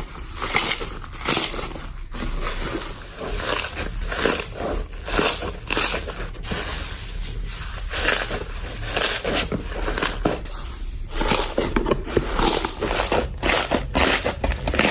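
Slime being squeezed and pressed by hand, giving an irregular run of crackles and pops that gets denser near the end.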